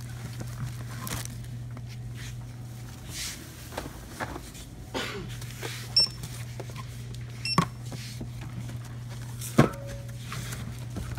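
Goods being rung up at a store checkout counter: a barcode scanner beeps twice around the middle, amid knocks and rustles of items handled and set down on the counter, with a louder knock near the end. A steady low hum sits under it all.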